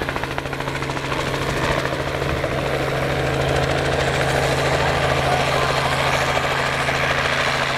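Small helicopter coming in low to land, its rotor beat and engine hum growing louder over the first few seconds and then holding steady.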